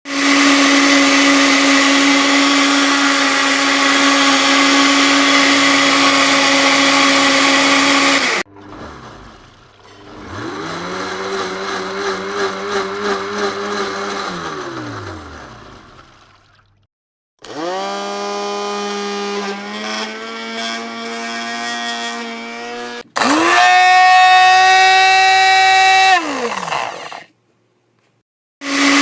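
Electric blender motor running in four separate takes with short gaps between them. First comes a steady high-pitched run of about eight seconds. Next is one that winds up, runs with a slight wobble and winds back down. A third steps up in pitch partway through. The last is the loudest and spins up, then winds down.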